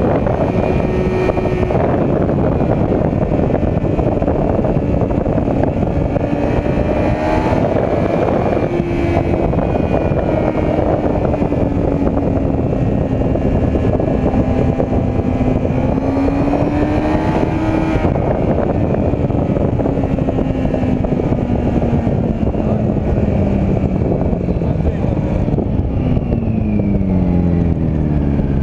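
Sport motorcycle engine running at cruising speed under heavy wind rush, with the engine note drifting gently up and down. The note breaks briefly about eight seconds in, and it falls away steadily near the end as the bike slows down.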